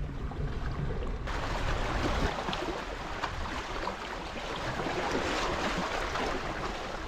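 Wind rumbling on the microphone at the water's edge. About a second in it gives way abruptly to a steady hiss of water with many small crackles.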